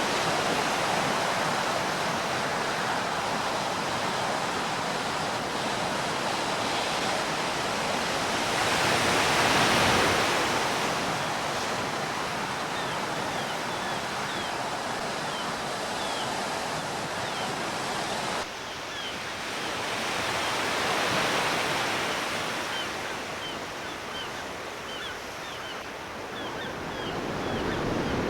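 Sea waves washing and breaking on the shore, a steady rush that swells twice and changes abruptly about two-thirds of the way through. Faint short high chirps sound over it in the second half.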